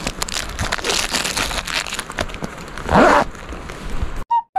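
Plastic snack packaging crinkling and rustling in the hands, with a louder burst about three seconds in. Near the end the sound cuts off and two short electronic pips follow.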